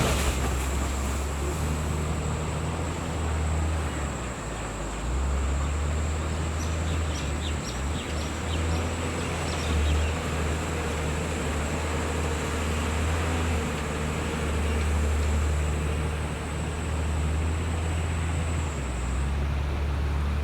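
Heavy diesel engine of a construction machine running, its drone rising and falling with load. A thin, steady high whine runs over it and stops near the end.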